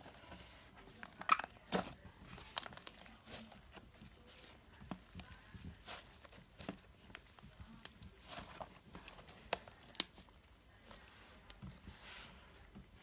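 Fluffy slime being squeezed and stretched by hand, giving irregular sticky clicks, pops and crackles, a few louder snaps in the first two seconds.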